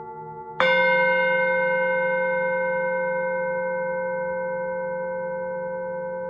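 Singing bowl struck once about half a second in. It rings with several steady overtones that fade slowly over the still-sounding ring of the previous strike, with a slow wobble in the tone.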